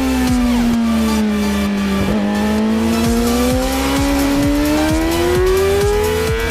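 Yamaha YZF-R6's inline-four engine at high revs, its note dropping for about two seconds as it slows and then climbing steadily as it pulls hard again. Electronic music with a steady beat plays under it.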